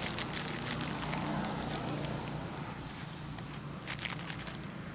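Crunching and rustling steps on dry leaves and grass, in a cluster during the first two seconds and again about four seconds in, over a steady low hum.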